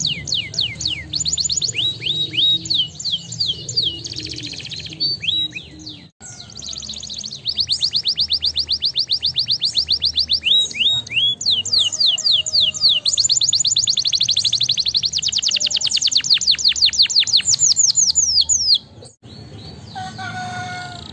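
Domestic canary singing: fast trills of high, downward-sweeping notes alternating with rapid even rolls of a dozen or so notes a second. The song breaks off briefly twice.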